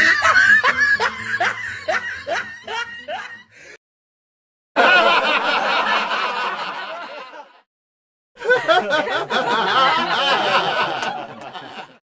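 Laughing sound effects in sequence: one voice's laugh fades out in a run of falling "ha"s, then after a short gap a recorded audience laughing for about three seconds, and after another short gap a second audience laugh clip.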